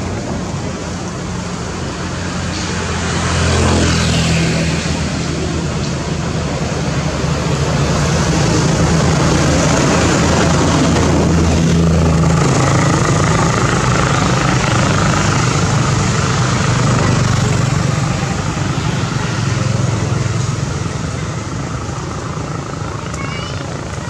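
A steady, loud motor drone with a constant hiss over it, a little stronger in the middle.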